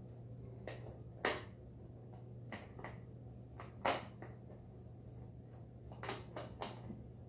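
Hands smoothing paste-soaked paper mâché strips onto a balloon: scattered light clicks and taps, the two sharpest about a second and about four seconds in, and a quick run of them near the end, over a low steady hum.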